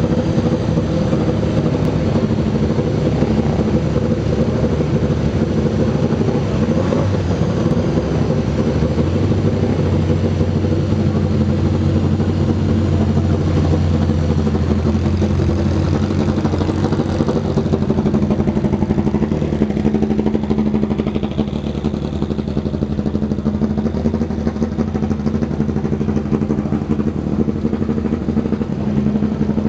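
Porsche 924, 944 and 968 four-cylinder engines idling and pulling away in slow succession as a line of cars creeps forward, with a steady mix of engine notes. A deeper engine note stands out through the middle, then gives way to a higher one.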